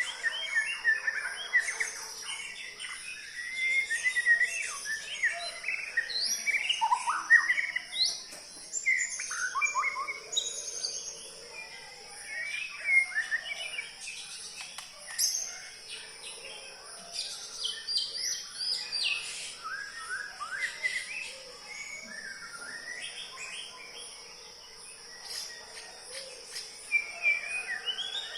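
Murai songbird singing a long, varied run of whistles, chirps and quick trills, broken by short pauses, over a steady high insect drone.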